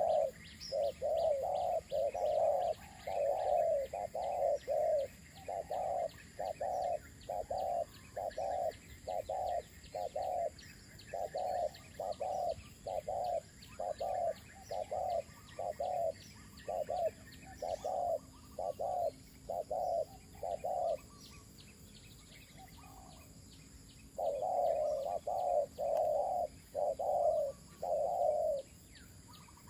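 Spotted dove cooing: a long run of short coos, about two a second, that stops for a few seconds about two-thirds of the way through and then resumes.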